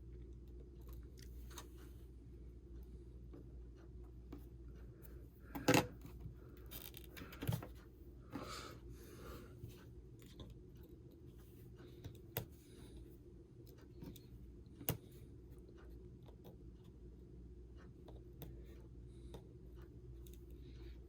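Small tools and fingers handling an opened iPhone 6 during battery removal: scattered light clicks and taps, the sharpest about six seconds in, over a low steady hum.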